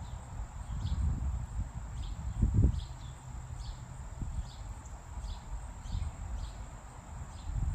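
Short high chirps repeating evenly, about two a second, from a small creature outdoors, over an uneven low rumbling noise that swells about two and a half seconds in.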